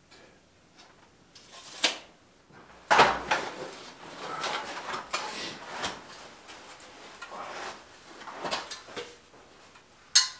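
Black steel stovepipe sections knocking and scraping against the wall thimble as they are handled and fitted: sharp clanks about two and three seconds in, the loudest at three seconds, rubbing between them, and another sharp clank near the end.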